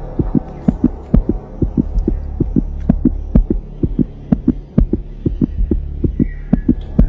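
Tense, heartbeat-like suspense sound laid over the scene: quick, steady bass thumps, about three or four a second, over a low droning hum.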